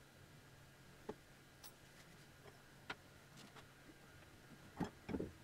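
Faint, scattered clicks of tools and small metal parts being handled on a wooden workbench, with a louder pair of knocks near the end as metal pieces are set down.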